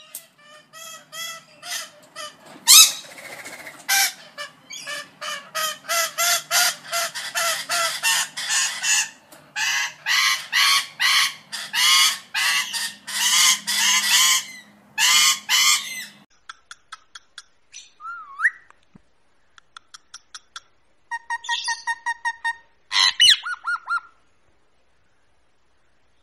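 A parrot calling in a fast run of short, repeated squawks for about sixteen seconds. Then come scattered clicks, brief chirps and a few rising and falling whistles.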